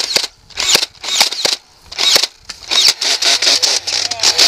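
Spring-powered Nerf foam-dart blaster fired over and over, sharp pops about every two-thirds of a second at first, then coming faster and running together in the second half.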